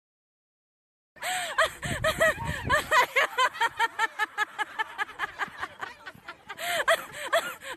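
High-pitched laughter: a quick run of giggling syllables, about four or five a second, starting about a second in.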